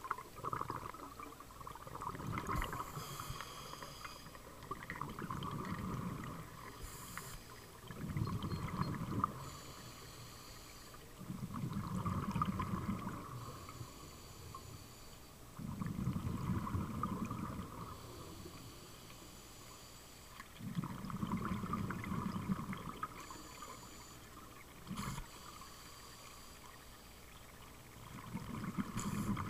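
Scuba diver breathing through a regulator underwater: a low bubbling rush of exhaled bubbles about every four to five seconds, with fainter hissing between breaths and a single sharp tick late on.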